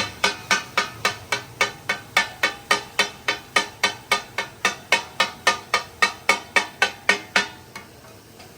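Rhythmic metal-on-metal striking, about four ringing strikes a second, stopping about seven and a half seconds in.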